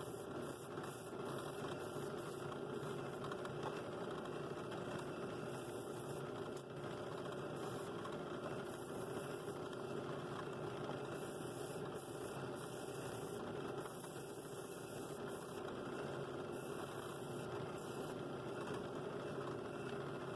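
Drill press motor running steadily, spinning a sanding attachment against a wooden bowl, with a light sanding hiss that comes and goes.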